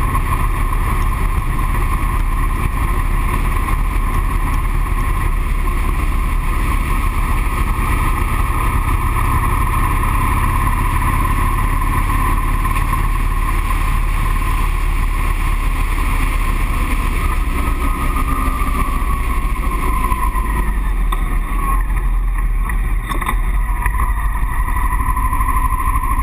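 Motorcycle engine running at road speed with wind noise on a handlebar-mounted camera. The engine note falls about three-quarters of the way through as the bike slows.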